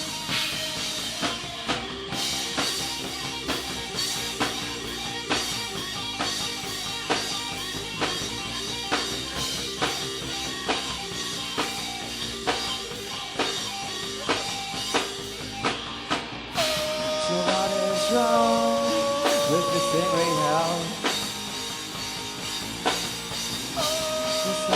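Rock band playing live: a drum kit keeps a steady beat under guitar and bass, with sustained melodic lines entering about two-thirds of the way in and singing resuming near the end.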